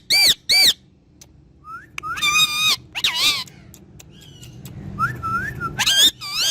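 Ringneck parrot calling: two sharp squawks at the start, whistled notes about two and three seconds in, and a run of short whistles and squawks near the end.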